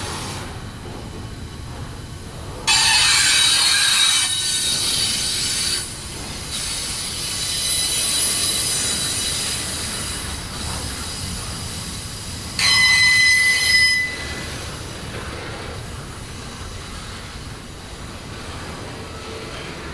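A train rolling past, its steel wheels squealing against the rails twice: a high-pitched squeal about three seconds in that lasts about three seconds, and a shorter one near the middle.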